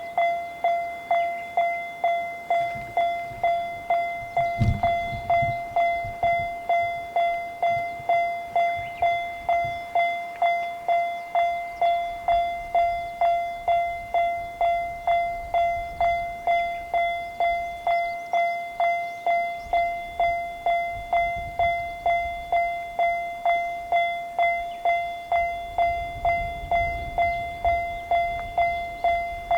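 Japanese railroad crossing alarm (the 'kan-kan' electronic bell) starts ringing and keeps striking the same pitched note at an even pace of about two strikes a second, the warning that a train is approaching and the barriers are coming down. A low thump sounds about four and a half seconds in.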